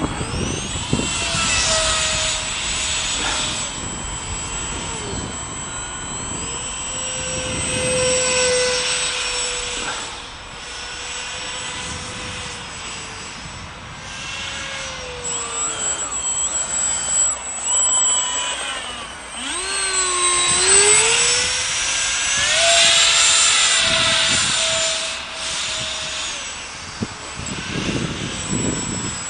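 Radio-controlled model Saab Viggen jet flying passes, its motor giving a whine that glides up and down in pitch with throttle and distance. It swells about eight seconds in and again, louder, past the middle.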